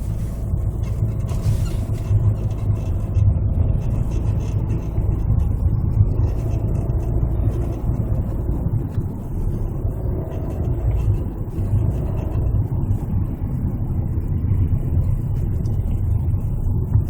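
Hyundai Santa Fe DM being driven: steady low road and drivetrain rumble inside the cabin, with the creaking from the front underside that the owner reports during driving, a sign of a worn or dry front suspension or underbody part.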